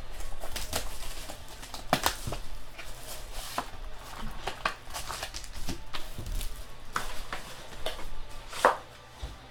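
Trading cards and their packaging being handled: irregular clicks, taps and rustles as the pack is opened and the cards are slid and flipped.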